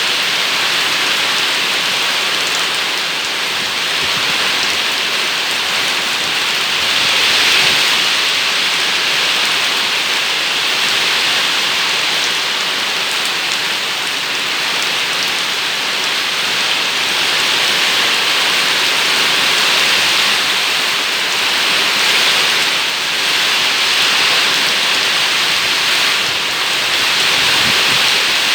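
Heavy rain pouring steadily, a dense hiss of rain on surfaces that swells and eases a little at times, as in a rainstorm with strong wind.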